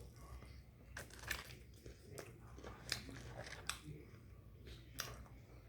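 A person chewing and biting food close to the microphone, with a crisp crunch or mouth click every second or so.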